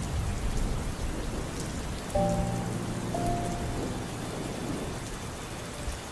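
Steady rain falling, with soft background music of a few held notes coming in about two seconds in.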